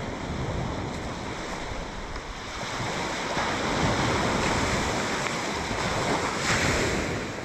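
Sea surf washing onto the beach near high tide, a steady rush of breaking waves that swells about three seconds in and again near the end, with wind buffeting the microphone.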